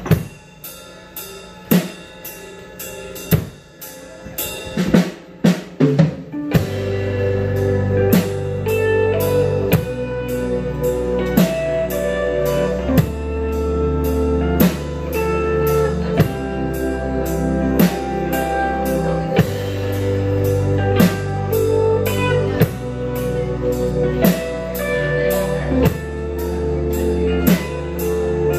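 Live rock band playing: electric guitars, electric bass and a drum kit. The first six seconds or so are sparse, with single drum hits and a few guitar notes, then bass and the full band come in on a steady beat.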